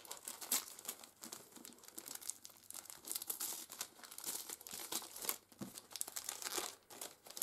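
Christmas wrapping paper being torn open and crumpled by hand, in irregular crinkles and rips.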